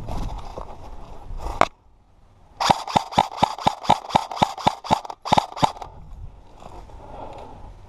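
Airsoft rifle fired in quick single shots: about fourteen sharp cracks over three seconds, a little over four a second. Before that there is rustling movement and one sharp knock.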